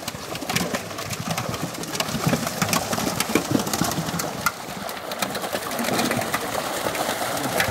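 Fish thrashing in a tightened seine net at the water's surface, giving rapid, irregular slaps and splashes of water.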